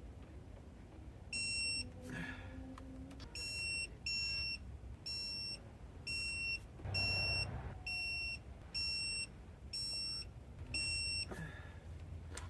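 Digital torque wrench beeping as its target torque is keyed in: about eleven short, high electronic beeps, roughly one a second, with a faint tool clatter between them.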